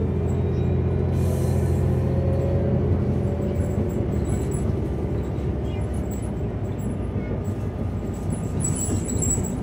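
New Flyer Xcelsior XDE40 diesel-electric hybrid bus pulling away, heard from inside the cabin. A steady drive hum carries a whine that rises in pitch over the first few seconds, then the sound settles into an even rumble of road and drivetrain noise.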